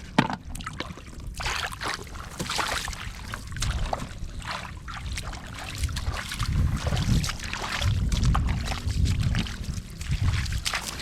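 Muddy shallow water sloshing and splashing in short, irregular bursts as hands dig through the mud for catfish. A heavier low rumble runs under the splashing about halfway through.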